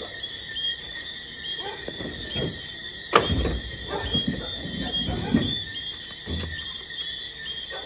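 Wooden posts being pulled from a stacked pile and dragged: a sharp wooden knock about three seconds in, with rustling and low thuds. Under it runs a steady, high chirping night chorus.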